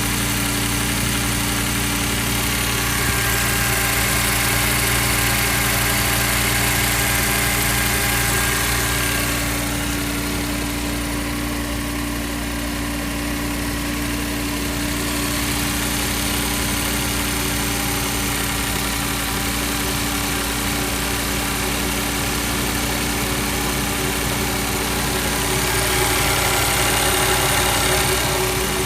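Engine idling steadily during its cold-start warm-up phase. The sound grows a little louder between about three and nine seconds in, and again near the end.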